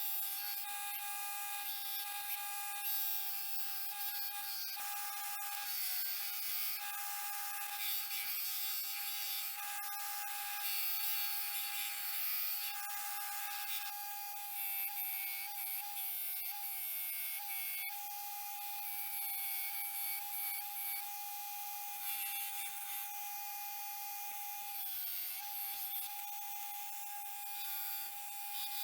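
Electric grinder running with a steady whine, grinding a forged Damascus steel knife blade to shape, with a hiss of abrasive on steel that swells and fades as the blade is worked. The whine sags slightly in pitch a few times as the blade is pressed in.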